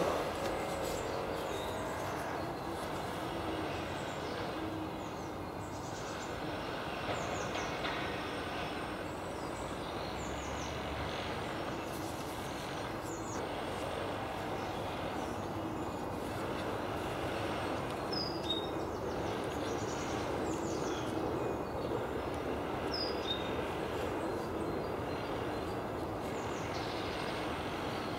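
Steady outdoor background noise, with small birds chirping now and then; a few sharper chirps stand out about two-thirds of the way through.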